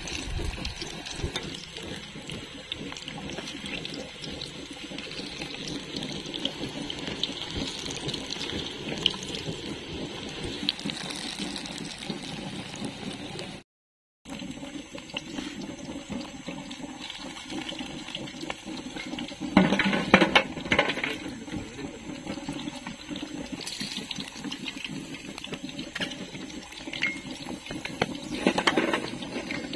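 Batter-coated egg pieces deep-frying in hot groundnut oil, a steady sizzle. It drops out briefly about halfway, and louder bursts of sizzling come about two-thirds through and again near the end.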